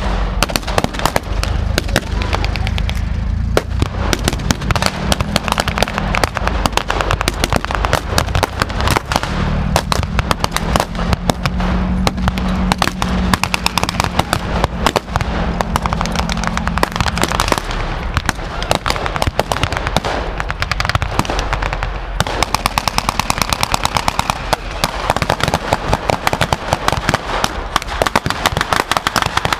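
Blank gunfire from WWII rifles and machine guns in a staged battle, shots following one another almost without pause, with rapid machine-gun bursts densest near the end. Under the shooting runs a low, steady engine sound from the armoured vehicles.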